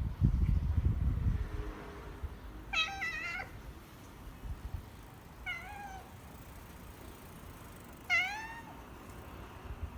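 A domestic cat meowing three times: a longer meow about three seconds in, a short one near six seconds, and a rising-then-falling meow about eight seconds in. A low rumbling noise is heard in the first second or so.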